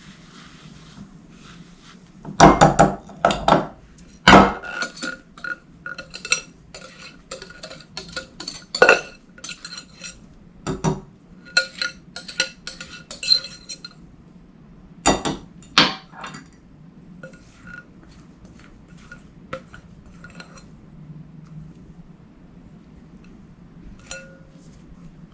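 A utensil clinking and knocking against a mixing bowl as whipped egg whites are mixed into almond flour and sugar. There are a few loud knocks a couple of seconds in and again after about fifteen seconds, with frequent clinks between them, growing sparser and fainter toward the end.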